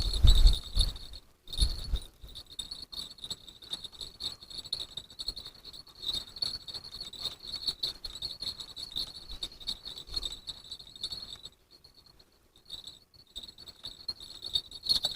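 Insects chirring steadily in a high, pulsing trill, with gusts of wind on the microphone at the start.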